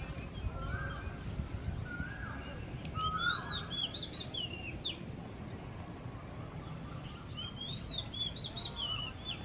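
Birds chirping in short, quick, rising-and-falling phrases, repeated several times, over a steady low background rumble.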